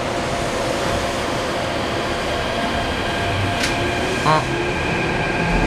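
Keikyu 1500 series electric train with a Mitsubishi IGBT-VVVF inverter, heard from inside the car while running: steady rolling noise under a motor whine. There is a sharp click about two-thirds of the way through, and the motor tone begins to rise in pitch near the end.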